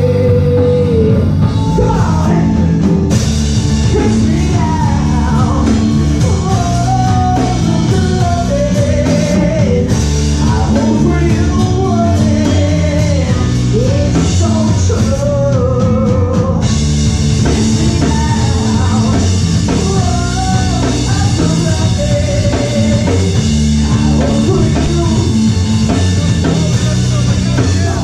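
Live rock band playing loudly: a singer's melody over drum kit, bass and guitar.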